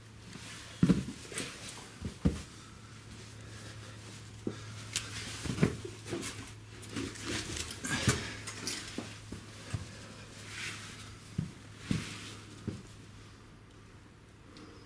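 Footsteps and scuffs on a rocky cave floor, with irregular knocks, clicks and scrapes as a person clambers over stone and grit. The knocks are sharpest in the first half and thin out near the end.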